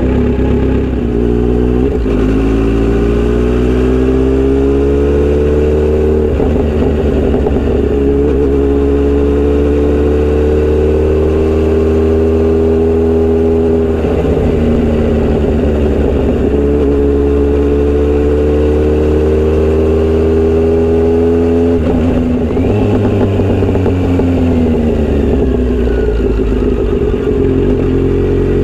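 Kawasaki Z900RS inline-four with a Misty Kintaro short-pipe exhaust, heard while riding. The engine note climbs slowly in gear and drops at each shift, several times. From about three-quarters of the way in it falls away as the bike eases off.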